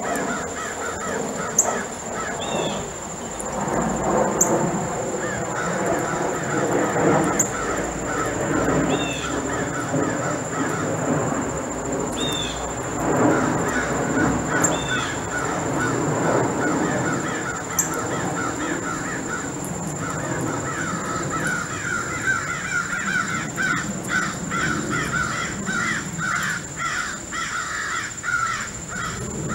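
Crows cawing over and over, many calls overlapping, with a quicker run of caws in the last third. A steady high-pitched whine runs underneath, and a few short high chirps come in now and then.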